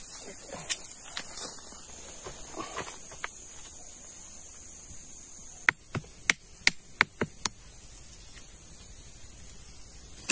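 A steady high insect drone from crickets or similar insects runs throughout. About halfway through comes a quick run of about seven sharp taps as a small hammer knocks a flat stone into place in a stone wall, with faint scraping of stones and soil earlier.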